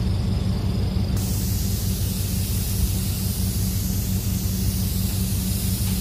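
Gravity-feed paint spray gun hissing as it sprays paint onto a car body panel; the high hiss comes in sharply about a second in and then holds steady. A steady low hum runs underneath.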